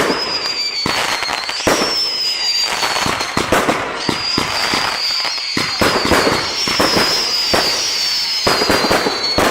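Fireworks display going off: rapid bangs over continuous crackling, with high whistles that slowly drop in pitch and start afresh several times.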